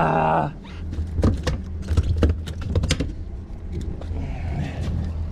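Freshly landed blackfin tuna slapping and knocking against the boat's fiberglass deck: a quick run of sharp knocks for about three seconds, then fading, over a steady low hum.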